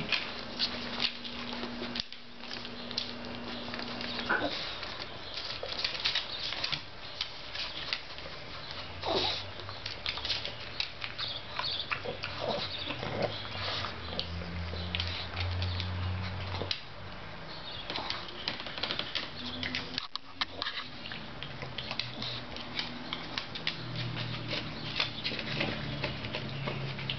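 Pug snuffling along a hardwood floor with its nose down, amid a steady run of small clicks and taps. A few low, drawn-out snorting grunts come and go.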